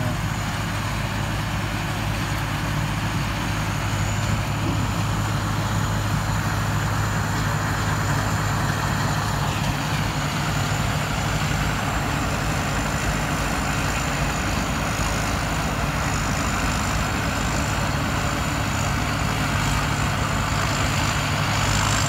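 Sit Charoen rice combine harvester's diesel engine running steadily under load while harvesting, with the rush of the cutting and threshing machinery. It gets a little louder as the machine comes closer. A thin, steady high whine runs over it.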